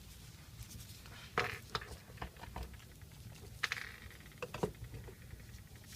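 Handling noises as tangled landscape netting is worked off a snake: a few scattered small clicks and snips with a brief rustle in the middle, irregular and quiet.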